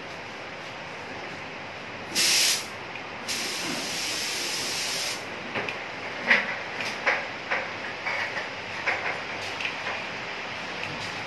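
Compressed-air paint spray gun spraying: a short loud blast of hiss about two seconds in, then a steady spray pass of about two seconds. Afterwards comes a run of short clicks and knocks over a steady background hiss.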